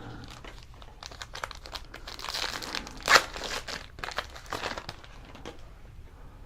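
Foil wrapper of a Panini Prizm football card pack crinkling and tearing as it is opened, with one sharp rip about three seconds in.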